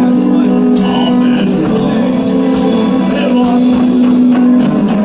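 Music with singing and a steady beat, cut off abruptly just after this.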